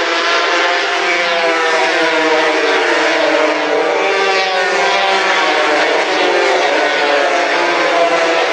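A pack of racing motorcycles at high revs, many engine notes overlapping and rising and falling in pitch as the bikes pass through a corner.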